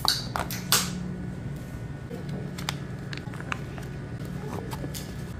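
Clear plastic lid of a convenience-store lunch box being handled and pulled off the tray: sharp crinkles and clicks, loudest in the first second, then scattered lighter clicks over a low steady hum.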